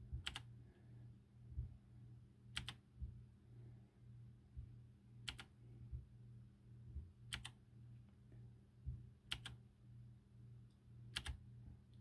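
Clicky blue-switch keys of a typewriter-style mechanical keyboard, a single sharp click about every two seconds as Fn + Insert is pressed to step through the backlight modes.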